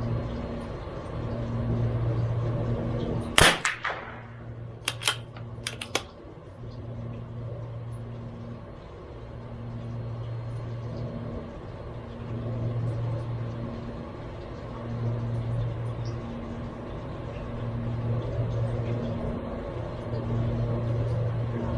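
A single .22LR shot from a CZ 457 MTR bolt-action target rifle about three seconds in, followed a second or two later by a few sharp clicks. Behind it, a low hum swells and fades every couple of seconds.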